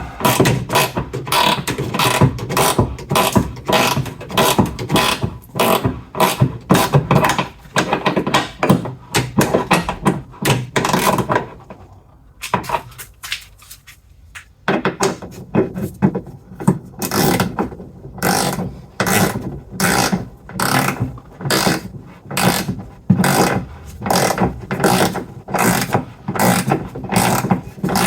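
Ratchet wrench clicking in short strokes, about two a second, as it tightens the wiper motor's mounting bolts. It stops for about two seconds near the middle, then starts again.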